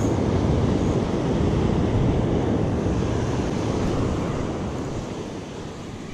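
Ocean surf breaking and washing up a sand beach, with wind on the microphone; the rush is loudest for the first few seconds and then fades toward the end.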